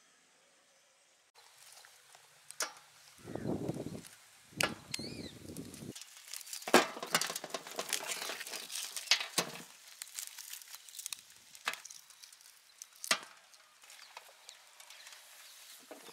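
Whole smoked rabbits being torn apart by hand on a steel platter: charred skin and meat crackling and ripping. Sharp snaps and clicks sound against the metal, the loudest about 7, 9 and 13 seconds in.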